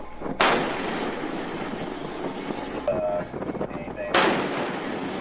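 Two shots from a Mark 45 five-inch naval gun, about four seconds apart, each a sudden loud boom followed by a long rolling rumble: disabling fire at a ship that would not stop.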